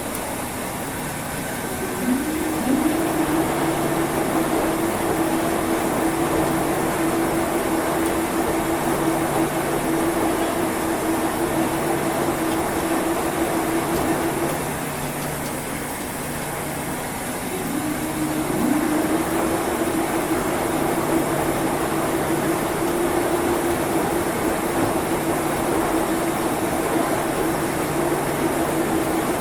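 Washing machine running: the drum motor starts with a rising hum about two seconds in and runs steadily, stops for a few seconds around the middle, then starts again with another rising hum. A steady churning noise and a lower hum that pulses on and off every second or two run underneath.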